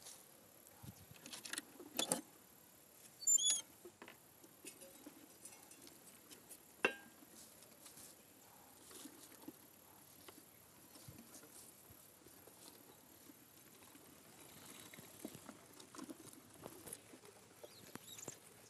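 Pet rats and a rabbit scratching and pattering softly about a wooden hutch among fresh greens, with a few sharp knocks and clicks from the hutch being opened and handled in the first seven seconds, one of them with a short high squeak about three and a half seconds in.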